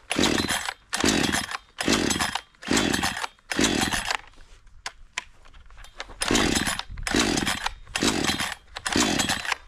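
Parkside PBKS 53 A2 chainsaw's 53 cc two-stroke engine being pull-started, the recoil starter cord yanked about five times in quick succession, then after a short pause five more times. The engine turns over on each pull but does not catch: a failed cold first start with the choke set and the primer bulb pumped.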